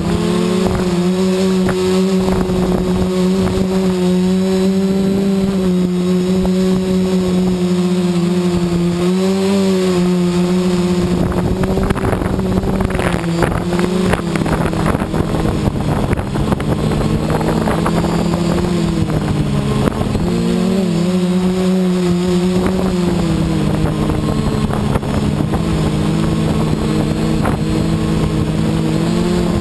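Quadcopter's electric motors and propellers droning steadily, heard up close from a camera on the frame, the pitch wavering and dipping briefly a couple of times as motor speeds change in flight.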